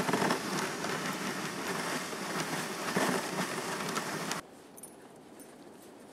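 Steady rushing noise of a dog sled running along a packed snow trail behind a two-dog team. It cuts off abruptly about four seconds in, leaving only faint quiet sounds.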